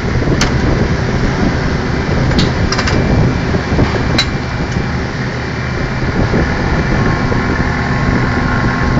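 Workover rig machinery running loudly and steadily, with sharp metal clanks about half a second in, a few more between two and three seconds, and one just after four seconds.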